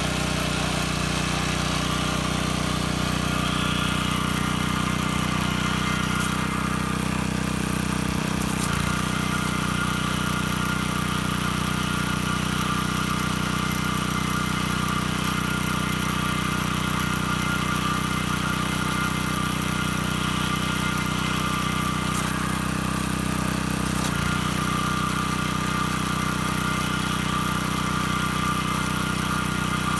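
McLane gas edger's small engine running steadily, with the blade spinning on freshly replaced, greased spindle bearings. The spindle itself is really quiet, with no bearing grind.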